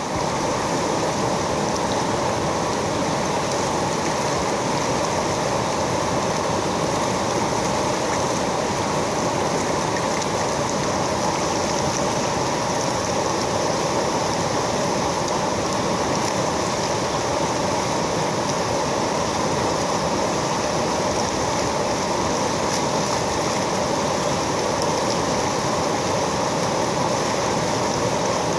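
River rapids: whitewater rushing steadily over and around boulders.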